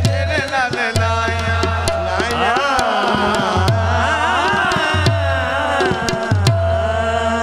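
Qawwali music: a male voice singing long, wavering melodic runs over held harmonium notes, with tabla beats and deep drum strokes about every second and a bit.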